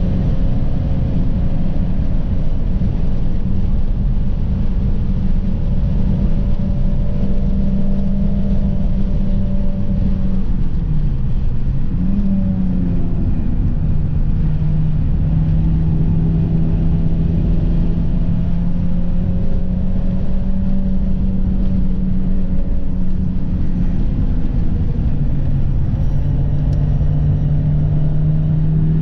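An Audi's engine heard from inside the cabin, driven hard on a race track, holding a steady high drone. About ten seconds in the revs drop briefly and climb back as the driver lifts for a corner, with road and wind noise underneath throughout.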